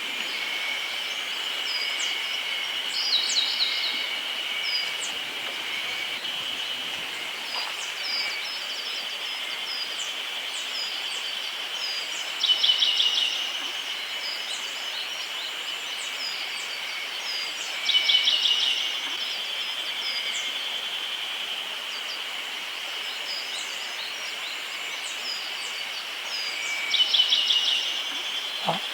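Small forest songbirds singing: a short, fast trill comes four times, about every five to nine seconds, with scattered thin chirps between, over a steady high-pitched hum.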